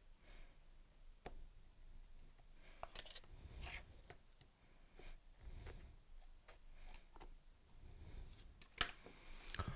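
Faint clicks and short scrapes of a small screwdriver turning screws out of a motorcycle battery's case, with soft handling taps scattered through.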